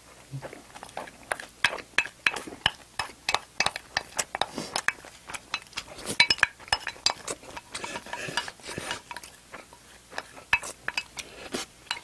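Close-miked eating: chewing and mouth smacks making a run of short, irregular clicks, with metal chopsticks clinking against the dishes.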